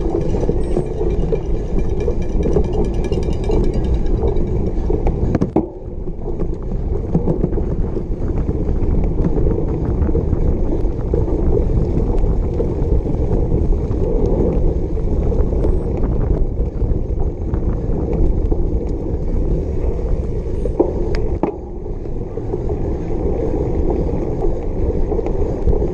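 Cyclocross bike ridden fast over a bumpy grass course, picked up by an action camera riding along: a loud, steady rumble of tyres and wind, with scattered knocks and rattles from bumps.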